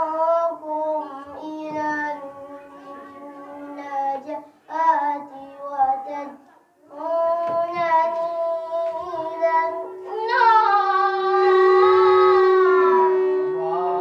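A boy chanting a Quran recitation in the melodic tajweed style through a microphone, long held notes that bend in pitch, broken by short breath pauses. From about halfway a steady tone sounds under his voice.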